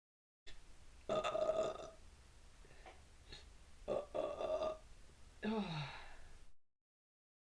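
A woman burping loudly, her stomach full of gas from a litre of sparkling water. Two long burps come, about a second in and about four seconds in, then a lower sound that slides down in pitch.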